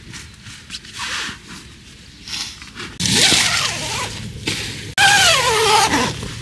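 A bird giving two loud, drawn-out cries about three and five seconds in, each wavering in pitch, the second sliding steadily downward.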